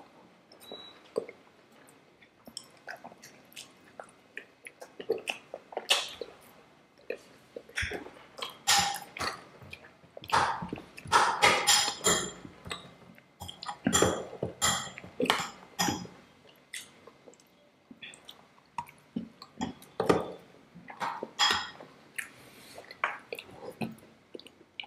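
Close-up chewing and mouth sounds of people eating soft Indian sweets and spoonfuls of a milky dessert, heard as many short, irregular smacks and clicks.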